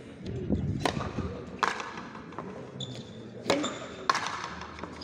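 Frontenis rally: four sharp smacks of the rubber ball off strung rackets and the concrete frontón wall, each with a short echo, the last two close together near the end.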